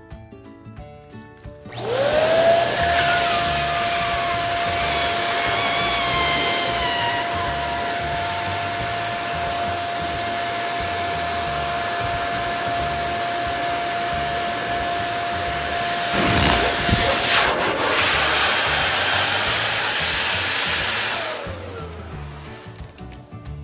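Electric balloon inflator pump switching on with a rising whine that settles into a steady hum. It runs for about twenty seconds and winds down with a falling pitch as it stops. A brief louder burst of noise comes about sixteen seconds in.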